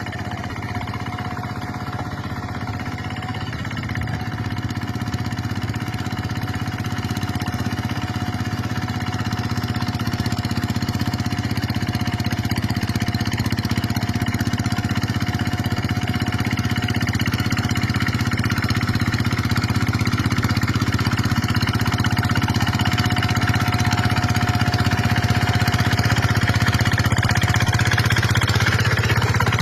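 Paddy-field tractor engine running steadily as it works the field, growing gradually louder.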